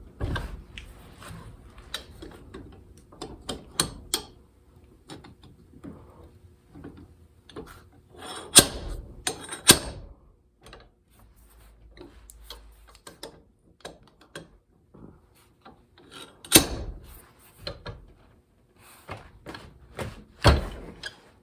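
A nail puller being worked to bite into and pull the wedge out of a sledgehammer head: scattered metal clicks and scrapes with several sharp knocks, the loudest about two fifths of the way in and again in the second half.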